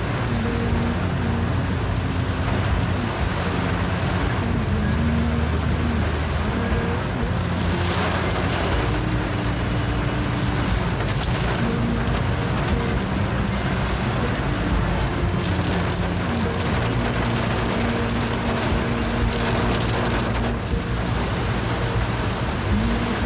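Heavy rain drumming on a moving car's windscreen and roof, a steady hiss throughout, with held and sliding musical notes of background music over it.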